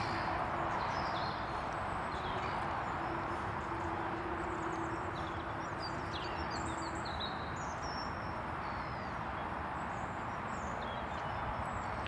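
Small birds chirping with short high calls scattered throughout, over a steady wash of background noise. A low steady hum fades out about seven seconds in.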